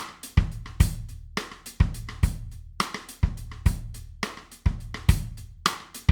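Drum kit playing a steady alternative-rock beat: bass drum and snare hits a little over twice a second under ringing cymbals and hi-hat, with lighter ticks between the main strokes.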